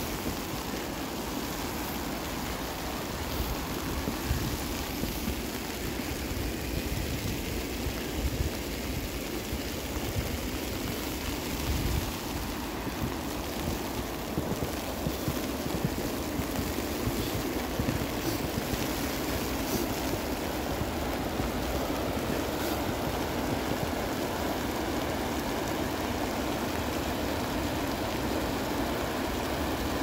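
Fast-flowing mountain creek rushing steadily, with an uneven low rumble underneath.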